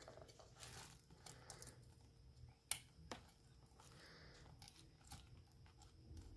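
Faint handling noise from metal binder rings and a notebook cover being worked by hand: light rustling and small clicks, with one sharper click a little under halfway through.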